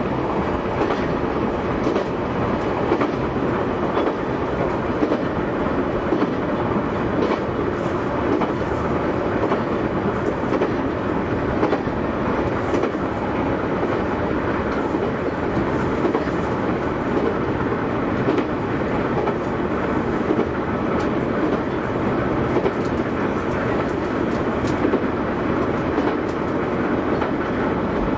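JR East E131 series 600-subseries electric train running at speed: a steady rumble of wheels on rail with a few faint scattered clicks.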